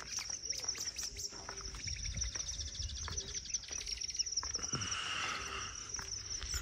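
Birds chirping and calling over a steady, high-pitched insect trill.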